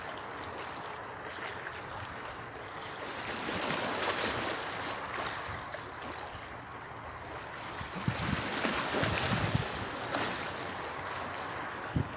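Small sea waves washing and sloshing against breakwater rocks, swelling and easing, with wind on the microphone. There are two brief thumps, one a little past halfway and one at the end.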